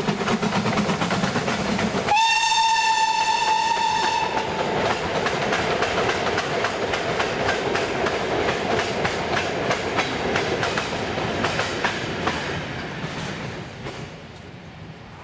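Steam locomotive hauling a goods train past, its exhaust beating quickly. About two seconds in it gives one steady blast on its whistle, about two seconds long. Then the wagons clatter over the rail joints, fading as the train draws away.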